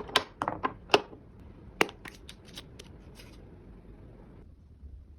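Rustling and sharp clicks of packaging being handled during an unboxing, busy for about three and a half seconds and then stopping.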